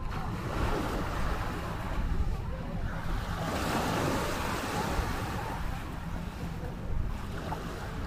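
Small waves lapping and washing up on a sandy beach, with wind buffeting the microphone; one wash swells up about three and a half seconds in.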